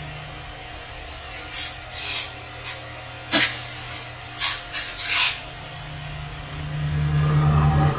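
A run of short, sharp hissing noises, about seven in a few seconds, one of them starting with a click, over a low steady hum.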